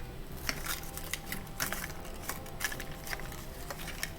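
Scattered light clicks and crinkles of a plastic Mini Brands capsule and its small wrapped pieces being handled and unwrapped.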